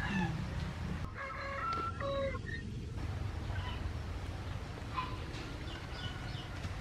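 A drawn-out animal call, about a second and a half long, starting about a second in, over a steady low background rumble. Shorter, fainter calls follow later.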